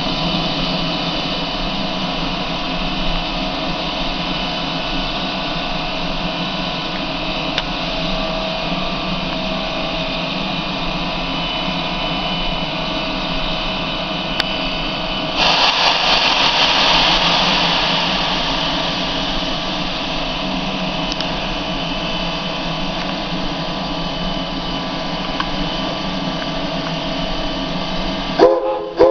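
Steam locomotive standing in steam, hissing steadily with a faint mechanical hum. About 15 seconds in, a louder rush of escaping steam starts suddenly and fades over two or three seconds.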